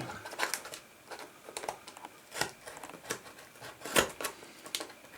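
Hands breaking the seal on a sealed box and working it open: irregular small clicks, scrapes and tearing sounds, with a sharper snap about 2.5 s in and a louder one about 4 s in.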